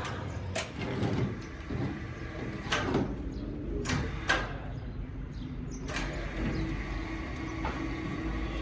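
Scattered sharp knocks and clicks, about half a dozen, over a steady low hum.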